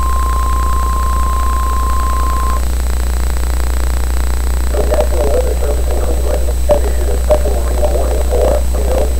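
NOAA Weather Radio warning alarm tone, one steady beep that cuts off about two and a half seconds in, over a constant low hum and radio hiss. About two seconds later a muffled, static-laden broadcast voice begins reading the alert.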